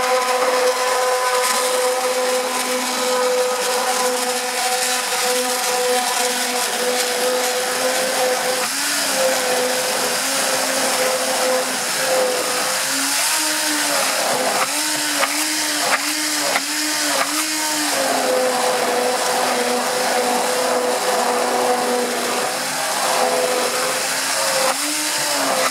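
Immersion blender running steadily in a stainless steel bowl, mixing crêpe batter as the flour goes in. Its motor pitch jumps up and down several times about halfway through and again near the end.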